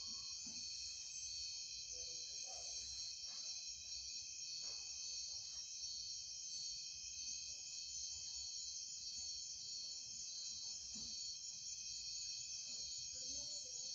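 A chorus of insects trilling steadily at several high pitches at once, one of them pulsing quickly.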